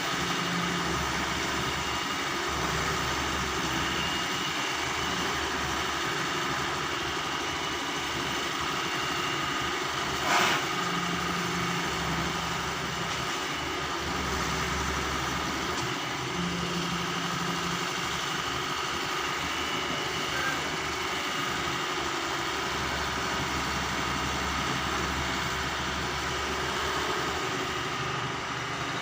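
Doosan 140 wheel excavator's diesel engine running steadily, its deep low hum swelling at intervals as the machine works. A single sharp metallic clank about ten seconds in.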